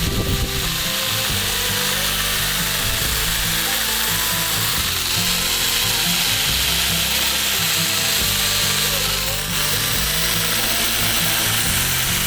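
Chainsaw running and cutting into a pumpkin, its pitch shifting up and down as the chain bites into the flesh and eases off.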